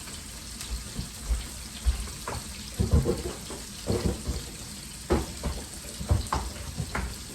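Kitchen work: a steady hiss with about a dozen irregular knocks and clatters of dishes or utensils being handled.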